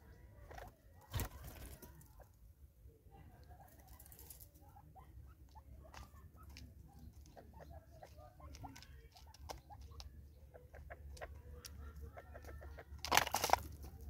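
Francolins feeding at a seed jar: soft clucking calls with short taps and rustles, a loud noisy burst about a second in and a louder one near the end.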